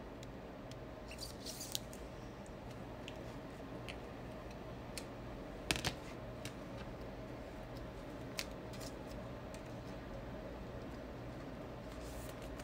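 Basketball trading cards and packs being handled: faint, scattered light clicks and taps, with a short cluster of them about six seconds in, over a low steady hum.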